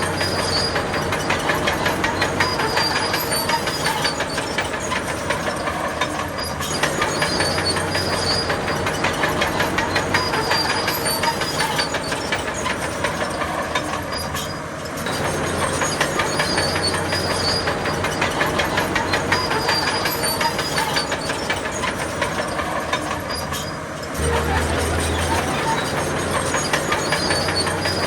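Crawler bulldozer working: diesel engine running with a rapid, continuous clatter of steel tracks. The noise eases briefly twice and picks up again.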